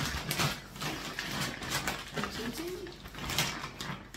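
Reusable plastic shopping bag rustling and crinkling as it is lifted and rummaged through by hand, with short bursts of crackling handling noise.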